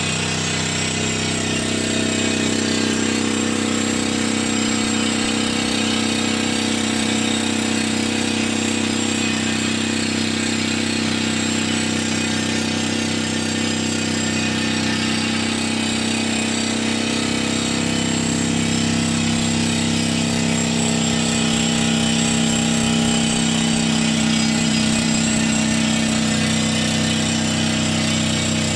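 Crawler-mounted pneumatic rock drill rig running steadily under load, its drill hammering down into rock over a constant engine hum.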